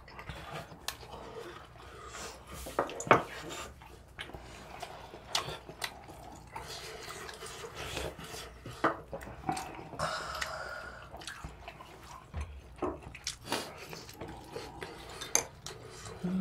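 Metal spoons and chopsticks clicking and tapping against bowls and a pot during a meal, in scattered irregular knocks with the loudest about three seconds in, along with sips of soup broth.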